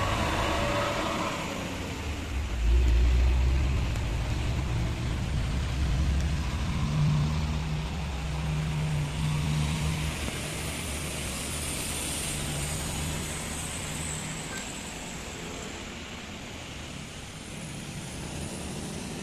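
Motor vehicles passing on a road: a low engine hum, with road and tyre hiss that swells about halfway through and fades toward the end.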